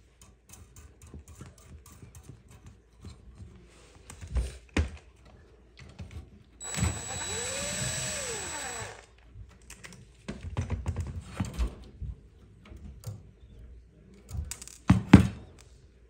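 Small clicks, rattles and knocks of spade connectors and wires being worked off the terminals of a dishwasher heating element, with a couple of sharper knocks near the end. About seven seconds in comes a whirring noise of about two seconds with a pitch that rises and falls, like a small motor.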